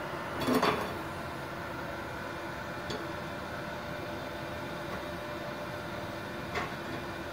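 Steady hum of a switched-on MultiPro MIG-MMA/TIG 160 inverter welder, most likely its cooling fan, with no arc struck. About half a second in there is a brief clatter of handling on the bench, and later a couple of light clicks.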